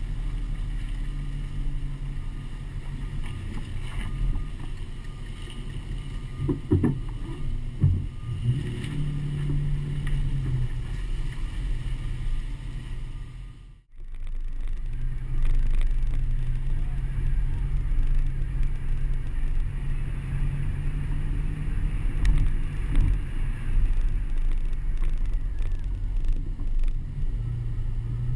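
A vehicle driving slowly, its engine a steady low hum under heavy wind rumble on a camera mounted outside the body, with a few knocks partway through. The sound cuts out briefly about halfway, then the same driving noise resumes.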